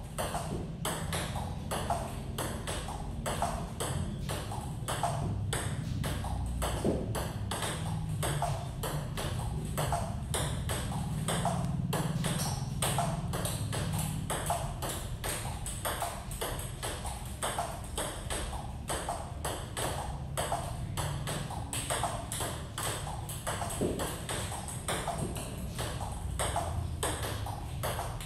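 A steady table tennis rally: the ball clicking alternately off the paddles and the table at about three to four hits a second, unbroken.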